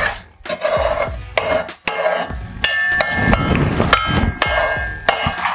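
A metal spoon scraping and clinking against a stainless-steel pot as it stirs, with many sharp knocks, while coconut curds fry in their own coconut oil underneath.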